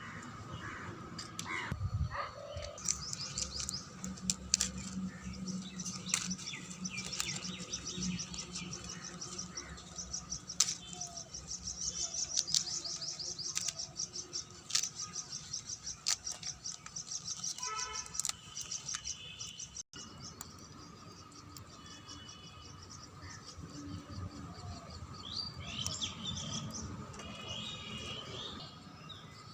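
Small birds chirping and twittering in a rapid, high-pitched stream, thinning out after about 17 seconds and returning briefly near the end, with scattered sharp clicks.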